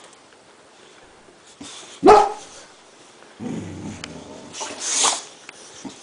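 Boxer dog barking once, loud, about two seconds in, followed by quieter, lower dog sounds.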